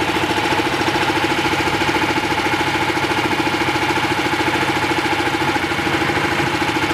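Munckhof Pluk-O-Trac's engine running steadily with an even pulse. Its V-belt drive is not squealing or slipping at this moment.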